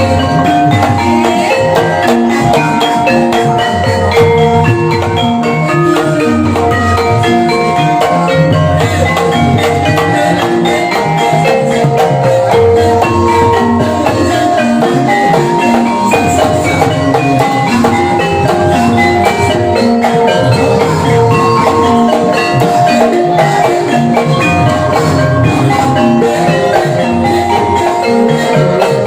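Banyumasan ebeg gamelan music: many short, interlocking notes from mallet-struck tuned percussion over drums, playing on without a break.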